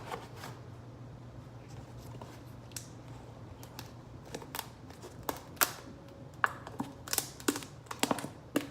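Light clicks and knocks of a mixing tray and small items being handled, scattered at first and coming more often from about five seconds in, over a faint steady low hum.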